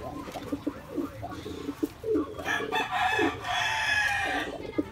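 Domestic pigeons cooing in short repeated calls at the nest bowl. About halfway through, a rooster crows once for about two seconds and is the loudest sound.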